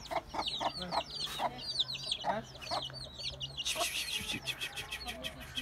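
Young chicks peeping over and over in quick, high chirps, mixed with a hen's short clucks.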